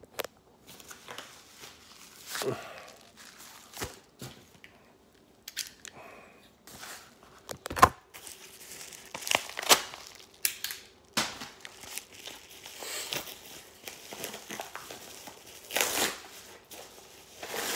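Packaging being torn open and crinkled by hand in an irregular series of rustles, rips and handling clicks, with one sharp knock a little before halfway.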